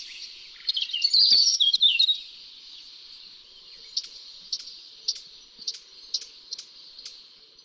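Eurasian blackcap: a short burst of rich, fast warbling song about a second in, then a run of short, sharp calls about two a second, over a steady high hiss.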